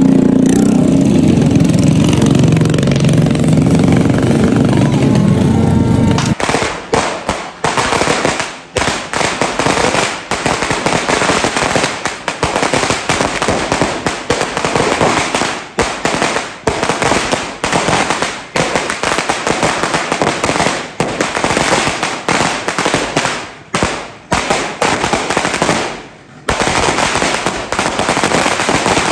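New Year's Eve firecrackers going off in a dense, continuous crackle of rapid bangs. It starts suddenly about six seconds in, after a loud low rumble.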